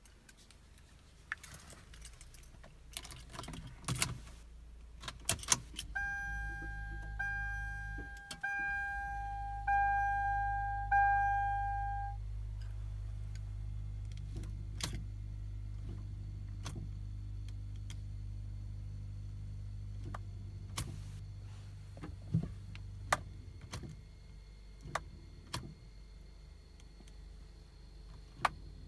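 Keys jangling in the cabin of a 1999 Lexus LX 470, then the dash warning chime sounding five times about a second apart as a steady low hum comes on with the ignition. After that come single sharp clicks every few seconds, and the engine never cranks: the no-crank fault.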